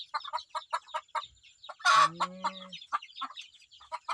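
Newly hatched chicks peeping in a quick, steady run of short high calls around their mother hen. About two seconds in, an adult chicken gives one louder, lower call.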